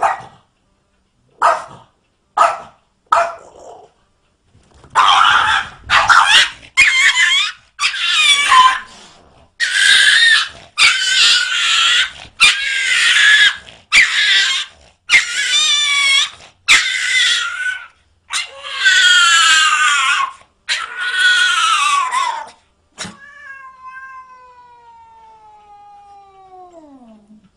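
Cat yowling in a series of loud, harsh, wavering bursts about a second long each, after a few short sharp calls at the start. Near the end a long, fainter tone slides steadily down in pitch.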